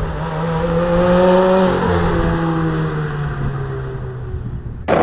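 A motor vehicle's engine running over road noise, its pitch falling slowly as it slows down, cut off suddenly near the end.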